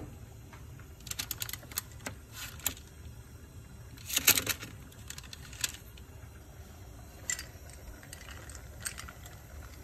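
Scattered light clicks and taps from bamboo skewers of sugar-coated strawberries being handled on a parchment-lined baking sheet, with a louder cluster about four seconds in, over a low steady hum.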